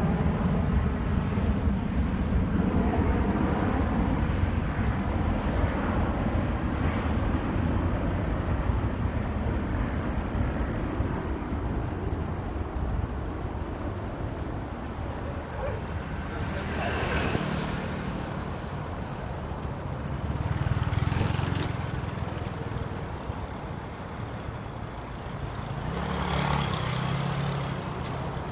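Steady low rumble of a vehicle driving along the road, with engine and road noise, swelling louder three times in the second half.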